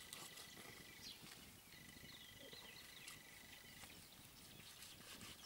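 Near silence: faint outdoor ambience with a few soft descending bird chirps, a faint steady high-pitched tone that stops about four seconds in, and a few faint ticks.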